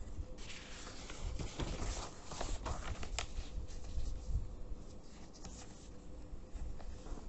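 Sheets of paper rustling as a page is lifted, turned and laid over another, loudest in the first three seconds, with lighter rustles later.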